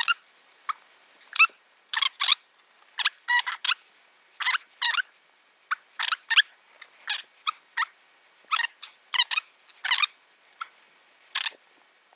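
Fillet knife slicing along a crappie's body, its blade scraping over the scales and ribs in short, irregular strokes, about two a second.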